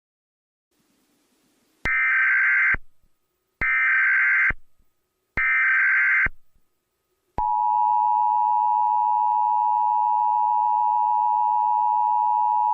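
Emergency Alert System signal: three short blasts of SAME header data tone, each just under a second and about two seconds apart. About seven seconds in, the steady EAS two-tone attention signal starts and holds.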